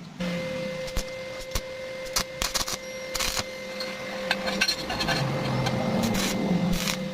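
Electric arc welding on steel reinforcing bar. The arc starts just after the beginning and runs steadily, with a constant high hum, a crackling hiss and scattered sharp clicks.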